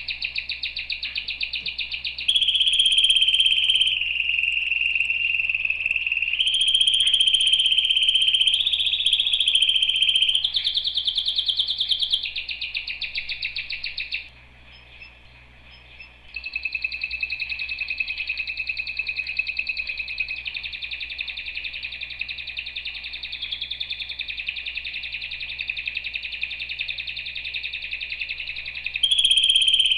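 Domestic canary singing: long rolling trills of rapidly repeated notes, switching to a new trill every few seconds, with a break of about two seconds near the middle.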